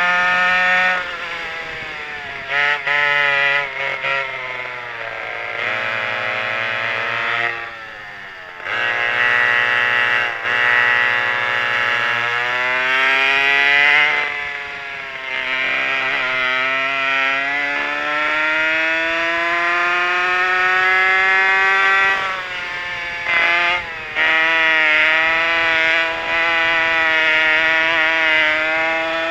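A pair of McCulloch 5.3 cubic-inch two-stroke chainsaw engines driving a vintage racing kart, screaming at high revs. Their pitch climbs in long sweeps under full throttle and drops away several times as the throttle is eased off.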